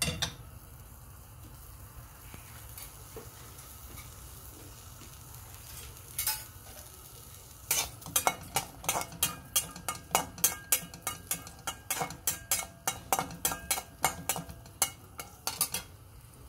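Whole small onions sizzling quietly in hot oil in a metal kadai, then from about halfway through a metal spatula stirring them, scraping and clacking against the pan about three times a second.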